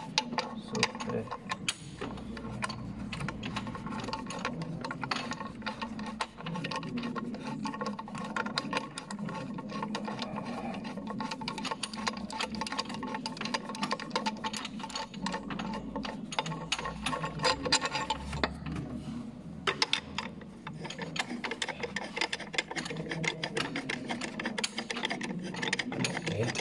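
VW TDI diesel engine idling, with a steady, fast ticking clatter over a low hum.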